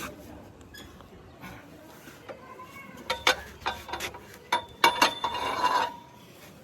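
Metal tools clanking and scraping against the wheel and its nuts: a series of sharp clinks from about three seconds in, some ringing briefly, with a scrape near the end.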